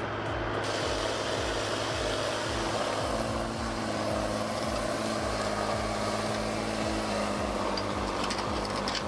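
A heavy diesel vehicle's engine running steadily under a continuous low throb.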